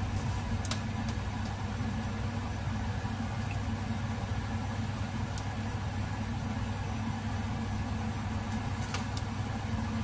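A steady low hum fills the background while breaded cassava croquettes fry in shallow oil, with a few faint pops and crackles now and then.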